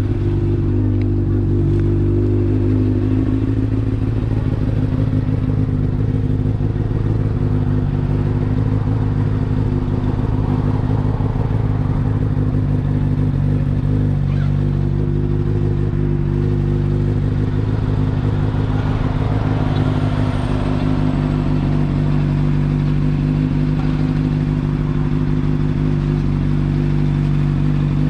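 Motorcycle engine running at a steady, even pitch while being ridden along the road.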